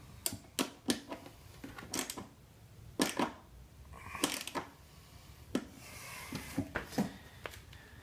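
Irregular sharp metallic clicks and clinks of an Allen wrench working the mounting bolt of a StegPegz bracket on a motorcycle frame, a dozen or so spread unevenly through.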